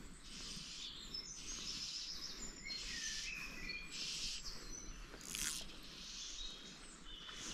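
Several songbirds singing and calling, short whistled notes and trills, over a steady outdoor background hiss. There is one brief sharp noise about five seconds in.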